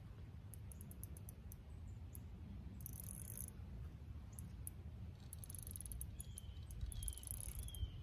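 Spinning reel's drag clicking in fast spurts as a heavy fish pulls line off against it, over a faint low rumble. A few short falling chirps come near the end.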